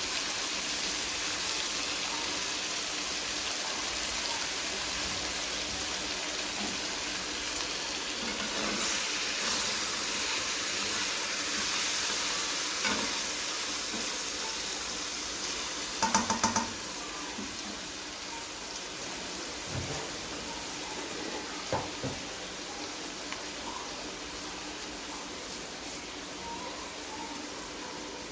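Food sizzling steadily in a pan. Partway through come quick metallic clinks, four in a row, then a couple more light knocks later, as of a utensil against the pan.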